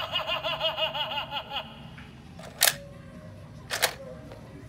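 Animated monster alarm clock prop giving a fast, warbling electronic cackle for about a second and a half, then two sharp plastic clacks about a second apart as its split face panels close back into a clock face.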